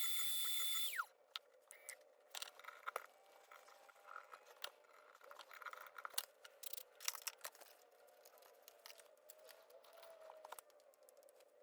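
CNC milling spindle whining at high speed, then spinning down with a falling pitch about a second in. After it stops, scattered light clicks and small scrapes.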